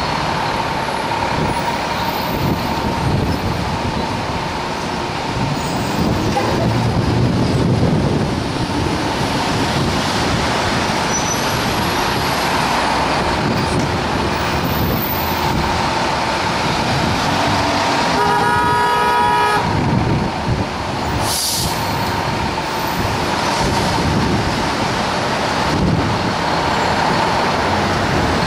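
A fire engine pulls out through heavy city traffic, its diesel and the passing cars making a dense rumble. About two thirds of the way through, its air horn sounds one blast of roughly a second and a half.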